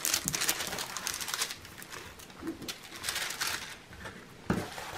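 Plastic protective film on a diamond painting canvas rustling and crinkling as the canvas is handled and smoothed flat by hand, with a soft thump near the end.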